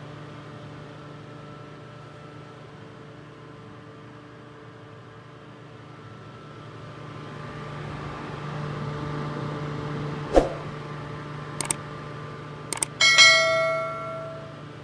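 Fan motor humming steadily with a few held tones, swelling slightly past the middle. Near the end come a knock, a few quick clicks and a single bell-like ding that rings out for about a second.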